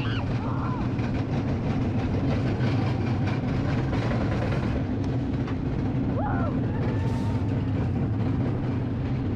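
A fairground roller coaster running, a steady low mechanical rumble of the ride on its track, with a few faint voices calling out over it.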